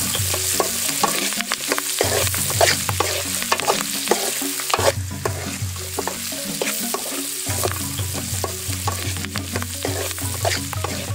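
Chopped spring onions and dried red chillies frying in hot oil in a metal pan, sizzling steadily, while a steel spoon stirs them and clicks and scrapes against the pan many times.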